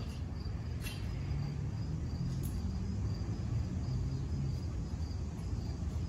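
Insects chirring steadily in the background, a faint high pulsing that runs on without a break, over a low outdoor rumble. A single short click comes about a second in.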